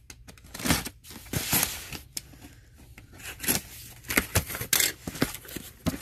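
Packing tape on a corrugated cardboard box being slit with a box cutter and torn, then the box flaps pulled open: a string of short, irregular tearing, scraping and rustling noises.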